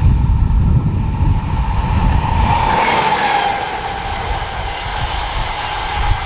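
A train passing on an electrified mainline, with a steady whine that peaks and dips slightly in pitch a few seconds in, over a rushing hiss. Low wind rumble on the microphone fades out partway through.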